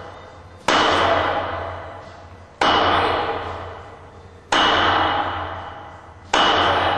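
Bare-hand strikes on a hard conditioning surface: four evenly spaced blows about every two seconds, each a sharp impact followed by a ringing tone that fades away before the next.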